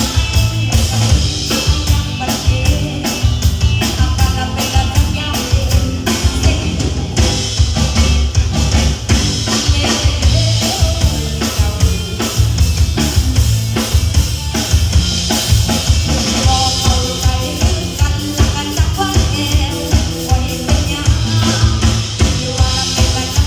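A band playing music with a drum kit and a strong bass line, keeping a steady beat.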